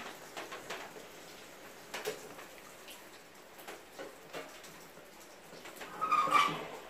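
Faint scattered ticks and clicks, then about six seconds in a louder, briefly ringing metal clatter as a stainless steel steamer pot is gripped by its handle and lifted off the gas burner.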